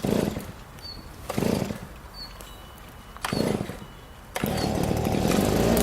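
A small petrol engine is pull-started: three short pulls of the starter cord, and on the fourth try, about four and a half seconds in, the engine catches and keeps running steadily.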